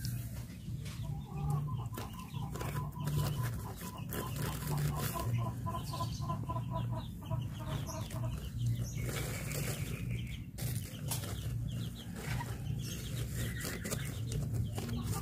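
Chickens clucking, with short clicks and rustles through it.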